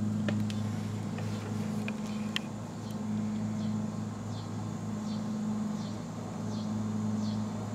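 A steady low hum, with a couple of faint clicks in the first few seconds.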